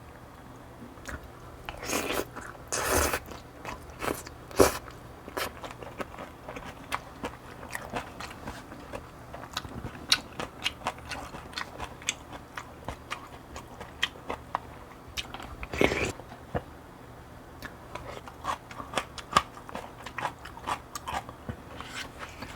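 A person eating close to the microphone: chewing, with many small wet mouth clicks and crunches throughout and a few louder, longer bursts a few seconds in and again around the middle.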